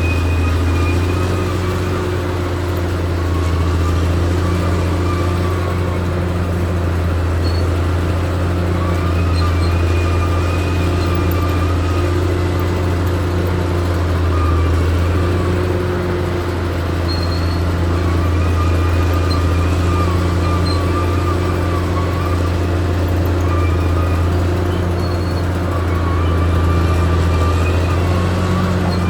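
Caterpillar D6R XL bulldozer's diesel engine running steadily with a deep hum. A fainter, wavering whine comes and goes every second or two.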